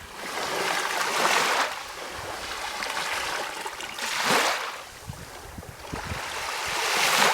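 Small waves of a calm sea washing in and drawing back, in three swells: one over the first second and a half, a short one about four seconds in, and one building to its loudest near the end.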